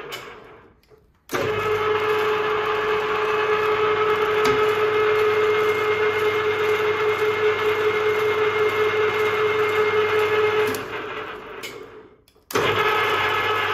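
Ferm FM760/300T metal lathe running with a steady whine. It coasts down to a stop just after the start, starts up abruptly about a second in, coasts to a stop again around eleven seconds, and starts once more near the end, switched by the spindle control lever on the apron.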